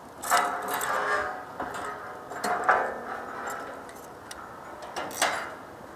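Steel clanking and rattling: crane hook, rigging hardware and structural steel knocking together while ironworkers connect a hoisted beam, in several sharp ringing knocks with quieter rattling between.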